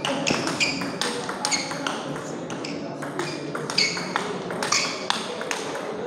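Table tennis rally: the celluloid ball pings sharply off the table and the rackets, a dozen or so hits at uneven intervals.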